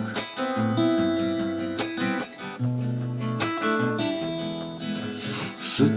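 Instrumental break of a Russian pop song: guitar strumming chords over bass, with held notes and no singing.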